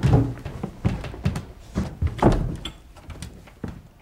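A door bang at the very start, then footsteps thudding down a staircase, about two steps a second.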